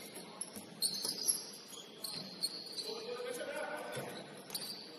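Basketball sneakers squeaking on a hardwood court: short, high chirps scattered throughout, with a couple of ball bounces about a second in.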